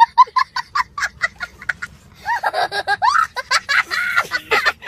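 A young boy laughing hard: first a quick run of short, high cackles, then longer laughs that rise and fall in pitch from about two seconds in.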